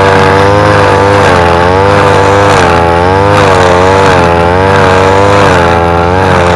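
Backpack petrol brush cutter running at high speed while cutting grass, its engine note dipping and recovering about once a second as the cutting head swings through the grass.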